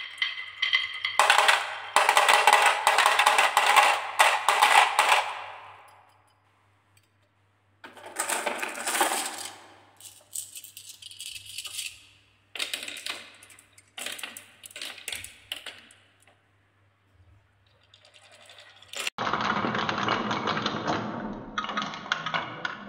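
Glass marbles rolling and clattering down wooden marble-run tracks, heard as bursts of rapid clicks and rattles with short near-silent gaps between runs. Near the end the sound turns into a steadier rolling rumble as marbles circle a wooden spiral track.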